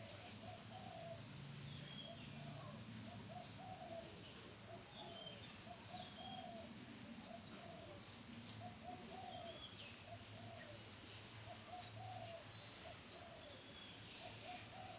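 Doves cooing softly: short, repeated low notes, with small birds chirping higher up.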